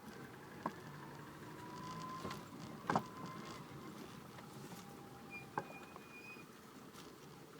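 A car being driven, heard from inside the cabin: low steady road noise with a few sharp knocks a second or more apart, the loudest a quick double knock about three seconds in.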